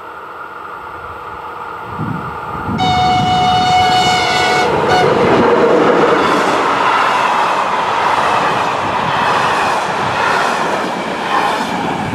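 Electric-hauled passenger train sounding one horn blast of about two seconds, about three seconds in, then passing close at speed with the rolling noise of the wheels on the rails and the coaches rushing by, easing off near the end.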